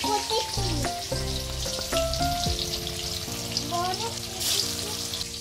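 Fish steaks sizzling as they fry in hot oil in a wok, a steady crackling hiss. Background music with held notes plays underneath.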